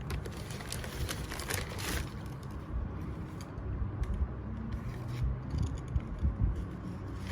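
Handling noise as sneakers are handled and turned over: rustling and scraping clicks, strongest in the first two seconds, over a steady low rumble.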